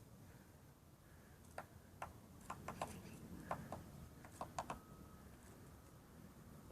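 Faint, irregular taps of a northern flicker pecking at a building's non-wooden siding: about a dozen sharp knocks spread over a few seconds, not a continuous drum roll.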